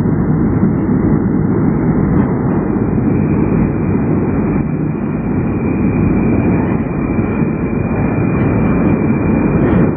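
Moscow metro train approaching through the tunnel into the station: a steady, loud low rumble, with a faint high whine joining about three seconds in.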